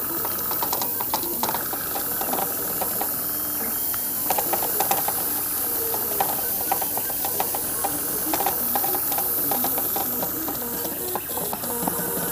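Compressed-air airbrush hissing steadily while the CNC machine's stepper motors whine in short bursts that keep changing pitch as the head moves and reverses, with frequent small ticks.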